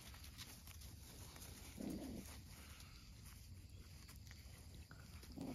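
Faint rustling and pattering of month-old puppies moving over dirt and dry pine needles. A short low sound comes about two seconds in, and another near the end.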